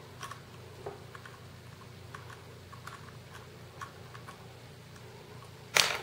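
Faint, scattered light clicks and taps of small parts being handled inside an open laptop case, then one sharp, loud click near the end.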